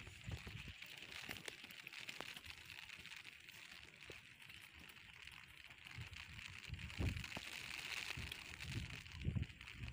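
Quiet outdoor ambience: a steady high-pitched hiss, with a few low thumps on the microphone about seven seconds in and again near the end.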